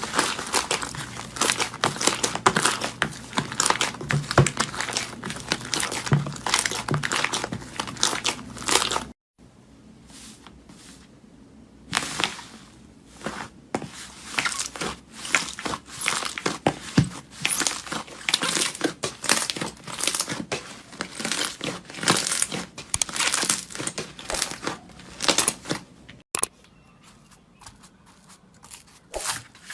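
Slime being squeezed and worked by hand, giving dense crackling, crunching clicks and pops. It drops away suddenly about nine seconds in, picks up again a few seconds later, and thins out near the end.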